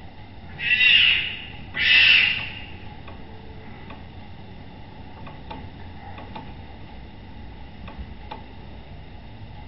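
Newborn Sumatran tiger cub crying: two high squalling cries about a second long each, one after the other near the start. After them come only a few faint ticks over a low hiss.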